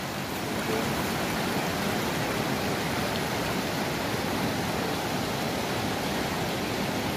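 A mountain stream rushing past in a steady, even wash of water.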